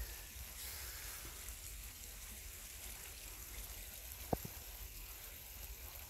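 Small stream trickling steadily, with two sharp clicks, one at the very start and one about four seconds in.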